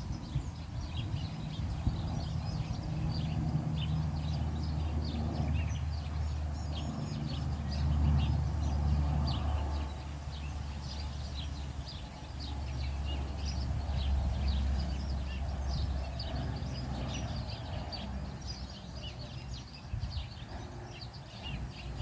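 Small birds chirping in many quick, short notes all the way through, over a low rumble that swells and eases.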